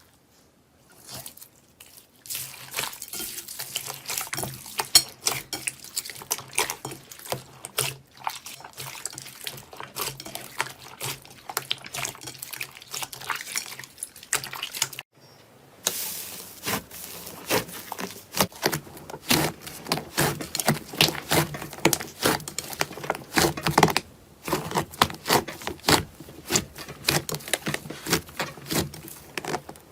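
Slime being squeezed, poked and stretched by hand, with a dense run of wet clicks and pops. There are short breaks about two, fifteen and twenty-four seconds in.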